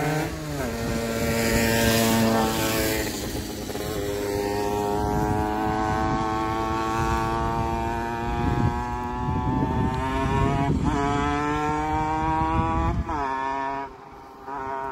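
A motor engine running steadily, its pitch rising and falling a few times as it revs, then dropping away near the end.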